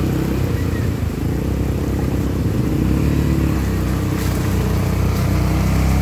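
ATV engine running as the quad bike drives through a shallow rocky stream, its wheels splashing through the water.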